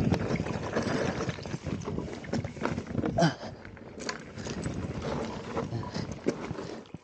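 Mountain bike (a Zerode Taniwha) rolling slowly over loose slate scree: tyres crunching on the shale, with stones clattering and knocking against the bike in quick irregular clicks. There is a brief louder scrape about three seconds in.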